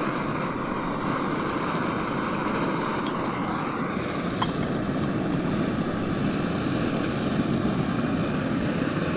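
Screw-on gas-canister camping stove burning at full flame with a steady roaring hiss.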